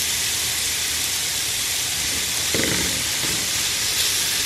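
Beetroot frying in sunflower oil in a skillet, with a steady sizzle.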